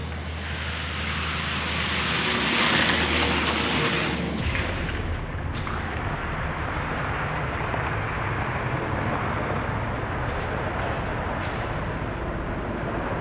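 Concrete mixer truck's diesel engine running steadily, with a rushing noise over it that is loudest in the first few seconds.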